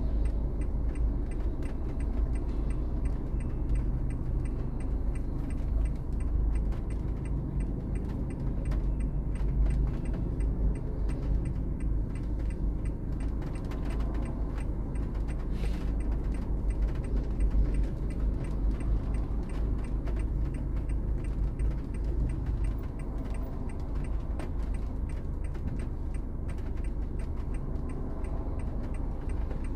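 Low, steady rumble of a car's engine and tyres heard from inside the cabin while driving, with a faint, regular ticking on top.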